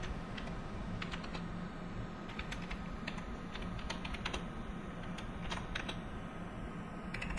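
Typing on a computer keyboard: scattered, unhurried key clicks at irregular spacing, over a steady low background hum.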